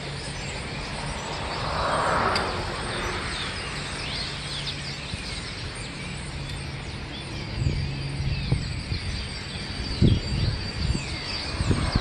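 A large flock of small birds perched in bare trees and on wires, many calling at once in a dense chatter of short chirps. A steady low hum runs underneath, and a few low thumps come near the end.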